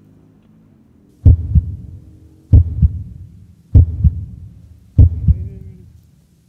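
Four heavy double thumps close to the microphone, evenly spaced about a second and a quarter apart. Each is a sharp knock followed a moment later by a smaller one.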